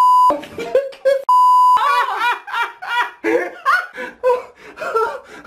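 A steady, high censor bleep tone covers words at the start and again briefly about a second and a half in. After that comes laughter mixed with voices.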